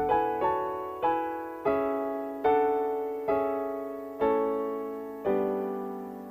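Closing music: a slow line of single piano notes, each struck and left to ring and fade, about eight of them and spacing further apart toward the end, the last note dying away.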